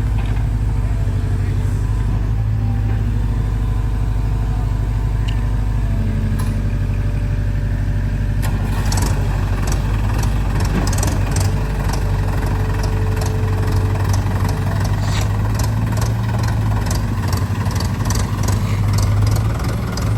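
Heavy diesel engine running steadily, with a low even hum. From about eight seconds in, a rapid scatter of sharp clicks and knocks rides over it.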